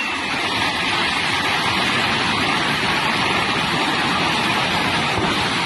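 Loud, steady rushing of water.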